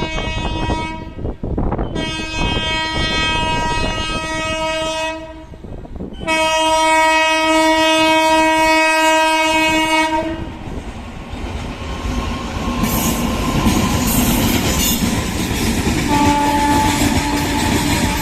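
Air horns of a pair of WAG-9 electric goods locomotives sounding a steady chord of several notes: a blast ending about a second in, then two long blasts of about three and four seconds. After that the goods train runs past with its wheels clattering on the rails, and a shorter, fainter horn sounds near the end.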